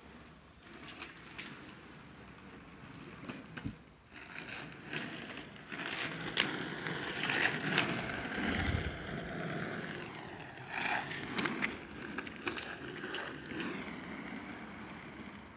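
Skateboard wheels rolling on rough asphalt, growing louder as the board passes close by and fading again, with a few sharp knocks along the way.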